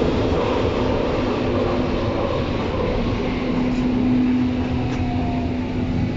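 Berlin U-Bahn train running inside a tunnel, heard from inside the car: steady rumble of wheels on rails with a humming motor tone. Near the end a tone slides downward as the train slows into a station.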